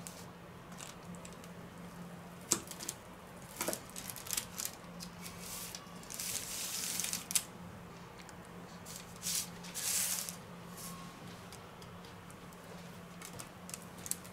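A kitchen knife cutting through a baked almond-topped pastry slab on baking paper: the blade crunches and scrapes through the crisp nut layer and across the paper, with a few sharp clicks of the blade against the countertop. A steady low hum runs underneath.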